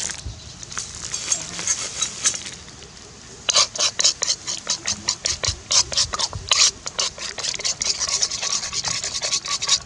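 Metal spoon scraping and stirring fried eggs around a wok, quick repeated strokes starting about three and a half seconds in. Before that, hot oil sizzling under the frying eggs.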